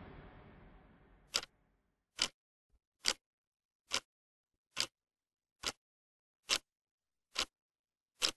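The last of the background music fades away, then nine short, sharp ticks at an even pace, a little more than one a second.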